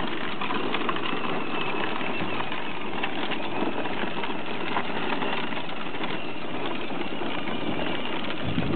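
Battery-powered Power Wheels Ford F-150 ride-on toy truck driving on asphalt: the hard plastic wheels rolling on the rough road with the steady whine of its electric drive motors.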